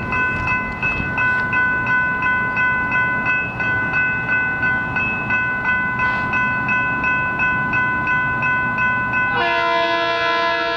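Grade crossing bell ringing with rapid, evenly spaced strikes, about three a second, over the low rumble of an approaching train. About nine seconds in, the locomotive's Leslie S2M air horn starts blowing a steady chord.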